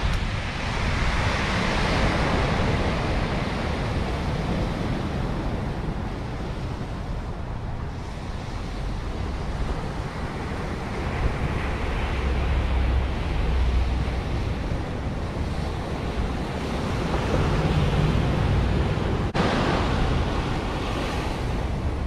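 Ocean surf breaking and washing up a sandy beach, swelling and fading in slow surges, with wind rumbling on the microphone.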